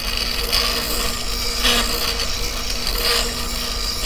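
Spindle sander running with a steady motor hum while its sanding drum scuffs the inside of a U-shaped cutout in a wooden hull. It swells into a louder scrape a few times as the wood is pushed against the drum.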